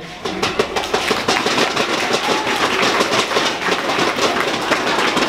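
An audience clapping: many hands at once, a dense, even clatter.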